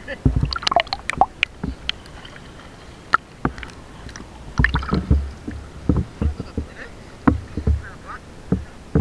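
Water sloshing and gurgling around an action camera carried at and under the sea surface, with sharp clicks in the first second and a half. From about halfway on, low thumps come every half second or so as the wearer wades through shallow water.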